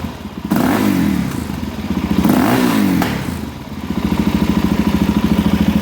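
Suzuki DR-Z400SM's single-cylinder four-stroke engine, running through a Yoshimura RS-2 full exhaust with a rejetted carburettor. It idles, is blipped twice with the revs rising and falling back, then idles steadily.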